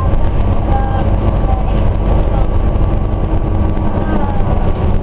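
Scania OmniCity single-decker bus under way, heard from inside the passenger cabin: a steady drone of engine and road noise.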